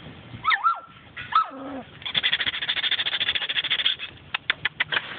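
Young Belgian Malinois puppies, about four weeks old, yelping and whining: two rising-and-falling yelps near the start, then a rapid high-pitched chatter and a few short sharp yips near the end.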